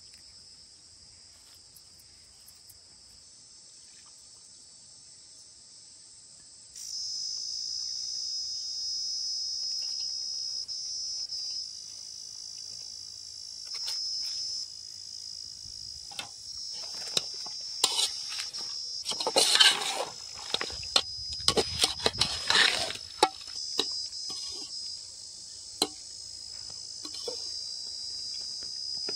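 Steady high-pitched chorus of insects, louder from about seven seconds in. Around the middle come several seconds of clatter and knocks, the loudest sounds.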